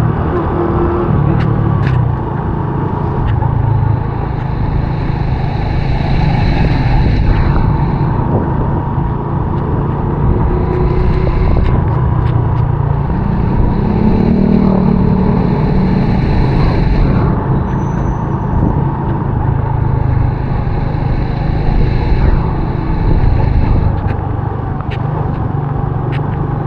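Honda RSX 110's small single-cylinder engine running on the move, under heavy wind buffeting on the microphone. A hiss, likely from the wet road, swells and fades several times.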